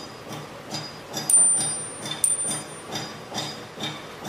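Background music with a steady beat of about two and a half pulses a second. About a second in, a single sharp metallic clink rings on briefly, as brass incense tools touch on the tray.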